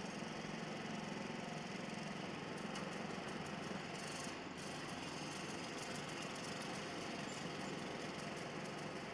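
A machine running steadily: a constant low hum with an even hiss over it.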